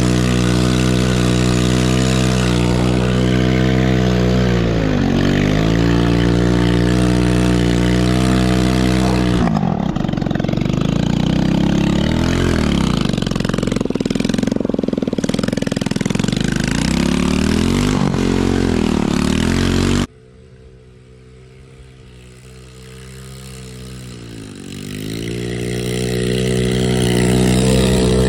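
Small 110cc single-cylinder four-stroke ATV engine running hard, its revs repeatedly dropping and swelling as the quad is slid through the snow. About two-thirds of the way in the sound drops abruptly to a much quieter engine note, which then builds with rising revs.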